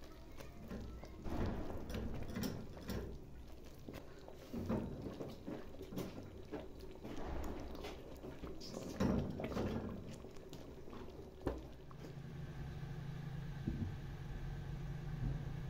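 Plastic spoon stirring a thick, bubbling flour-and-sugar halva mass in an aluminium pot, with irregular scraping and a few sharp knocks against the pot. About twelve seconds in the stirring stops and a steady low hum takes over.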